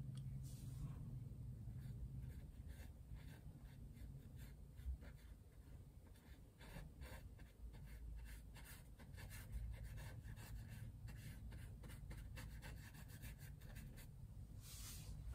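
Paintbrush strokes on a canvas panel: a run of many short scratchy brushing sounds starting a couple of seconds in and stopping near the end, over a low steady hum.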